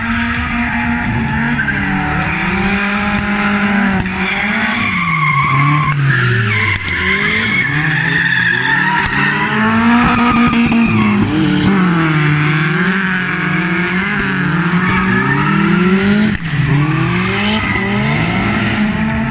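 BMW E36 318is drift car sliding, its 1.8-litre four-cylinder engine revving up and down over and over as the tyres squeal.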